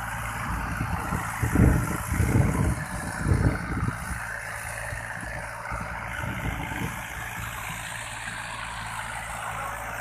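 Diesel farm tractor engine running steadily while pulling a cultivator through ploughed soil, heard from some way off. A few loud low rumbles come between about one and a half and three and a half seconds in.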